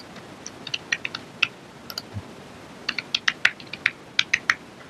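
Typing a username and password on a computer keyboard: a short run of keystrokes about half a second in, then a longer, quicker run of about ten keystrokes from about three seconds in.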